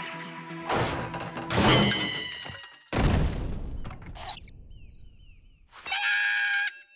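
Cartoon slapstick sound effects over music: a crash with ringing clatter, then a heavy thud about three seconds in as a character lands hard, a short rising whistle, and a brief bright musical sting near the end.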